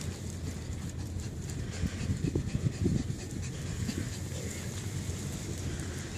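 A small dog panting as it walks on a leash. A quick run of louder breaths comes about two to three seconds in, over a steady low rumble.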